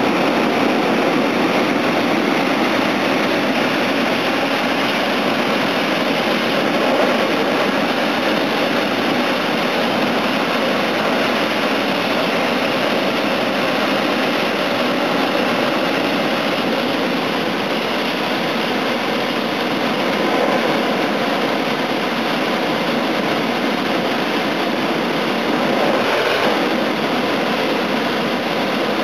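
Hot air balloon's propane burner firing in a long, steady blast.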